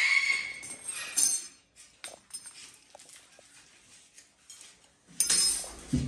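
Metal teaspoon clinking a few times against a stone windowsill as a macaw handles it in its beak, after a loud animal call that fades in the first half second. A loud sudden noise comes a little after five seconds.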